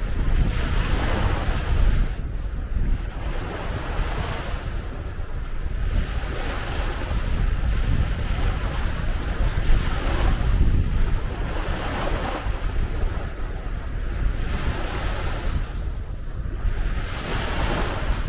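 Small wind-driven waves breaking and washing up a sandy beach, swelling in a hiss every two to three seconds. Strong wind buffets the microphone in a constant low rumble.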